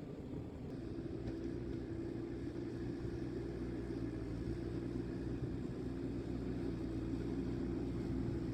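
JCB backhoe loader's diesel engine running steadily, a continuous low hum with a held drone.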